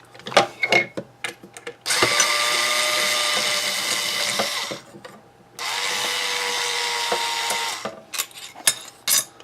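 Cordless power screwdriver running twice, about two and a half seconds and then about two seconds, backing screws out of a scanner's case, with small handling clicks before and after. The tool's battery is low on charge.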